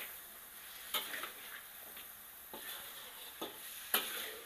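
Metal spatula stirring pork belly in a wok over a faint, steady sizzle of frying. The spatula knocks and scrapes against the pan four times, loudest near the end.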